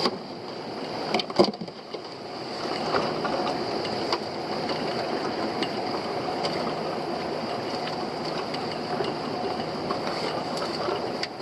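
Small fishing boat's engine running steadily, with a single sharp knock about a second in.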